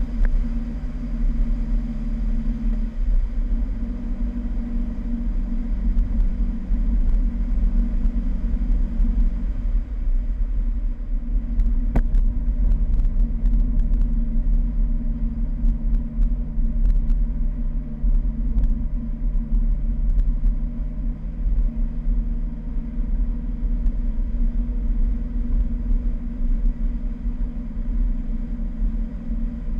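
Fiat 1200 Spyder's four-cylinder engine running under way at road speed, with tyre and road noise and a heavy low wind rumble on the open car's microphone. The engine note shifts a few seconds in and again about ten seconds in, and a few light ticks come around the middle.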